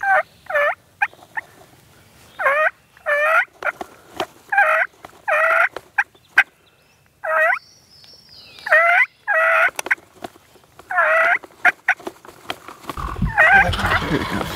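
Wild turkey gobbling repeatedly, short loud gobbles often coming two in quick succession a second or two apart. Near the end a rustle of movement rises under the calls.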